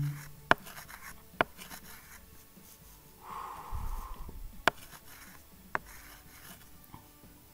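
A few sharp, isolated clicks and one short scratchy rub about three seconds in: pen or stylus handling and tapping while writing on a computer.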